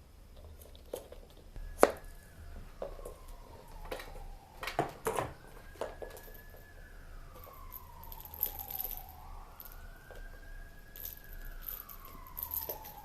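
A siren wailing, its pitch slowly sliding down and back up every four to five seconds, with a few sharp knocks and clicks, the loudest about two seconds in and a cluster around five seconds.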